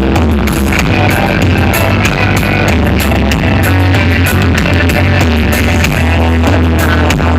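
Electronic dance music played loud through a large festival sound system, with heavy, steady bass.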